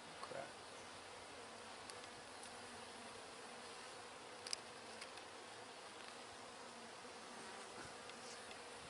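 Honeybees buzzing steadily at an open hive, a faint even hum. A few small clicks from handling, with one sharper click about four and a half seconds in.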